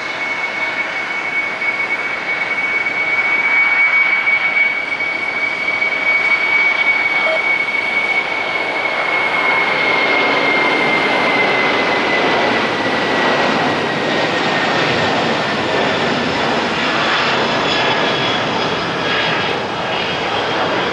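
Boeing 747-400's four General Electric CF6-80C2 turbofans at takeoff power: a loud jet roar with a high steady fan whine through the takeoff roll, lift-off and climb-out. The whine slides a little lower about halfway through as the jet climbs away.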